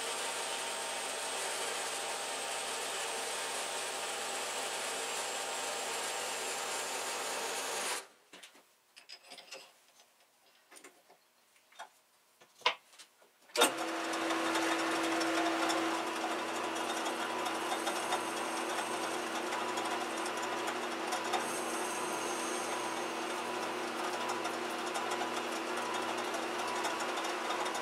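Metal-cutting horizontal bandsaw running through the tripod's metal extension tube, sped up four times; it stops about eight seconds in, leaving a few faint clicks and knocks. About fourteen seconds in, a metal lathe starts suddenly and runs steadily while the cut end of the tube is faced.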